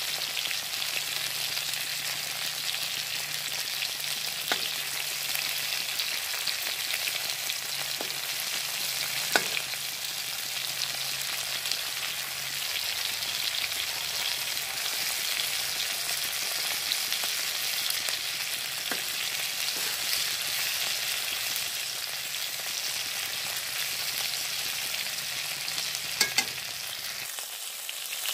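Food frying in oil in a pan with a steady sizzle, broken by a few sharp clicks of a spatula against the pan as the pieces are turned over.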